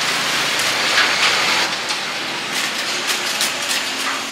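Lumps of charcoal clinking and scraping against a steel grill trough as they are stirred with metal tongs, over a steady hiss. The noise is loudest about a second in.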